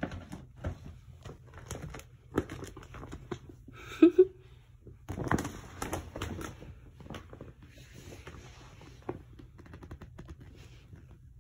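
Kittens pouncing on and scrambling against a large sheet of crinkly plastic: an irregular run of crackles and rustles, densest about five to six seconds in and thinning out near the end. A brief loud pitched squeak comes about four seconds in.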